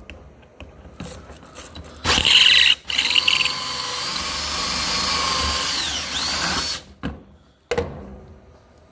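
Cordless drill boring out a strap rivet in an inline skate's cuff: a short burst about two seconds in, then a steady run of about four seconds whose pitch dips briefly near the end before it stops. A single knock follows.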